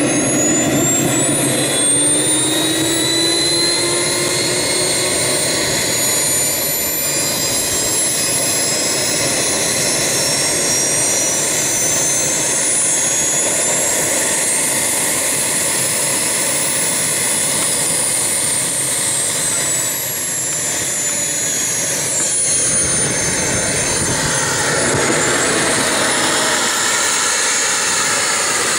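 Model jet's small gas turbine running: a high whine that climbs in pitch over the first few seconds as it spools up, rises again about halfway and drops back a few seconds later, over a steady exhaust hiss.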